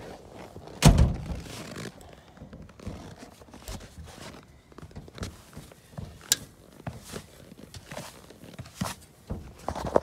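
A single heavy thunk about a second in, then scattered light knocks and footsteps in snow.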